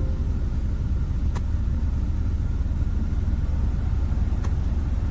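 Steady low rumble of a car engine idling, with two faint clicks, about a second and a half in and near the end.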